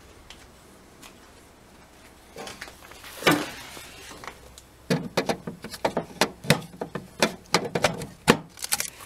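Handling noise as a Bosch 12 V battery is put into its charger: a scrape about three seconds in, then a string of sharp clicks and knocks, several a second, through the last four seconds.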